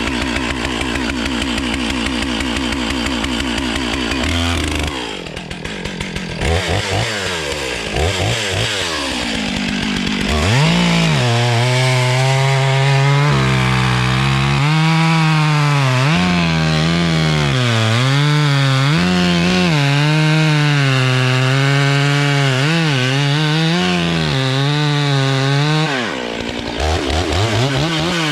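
Two-stroke chainsaw, first running steadily, then revved a few times. From about ten seconds in it holds at full throttle for roughly fifteen seconds, its pitch dipping and recovering under load as it cuts through poplar wood. Near the end it eases off and revs again.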